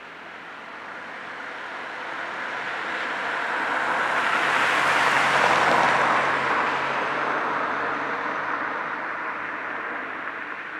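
A car driving past on the road: tyre and engine noise swelling to its loudest about five seconds in, then fading as it moves away.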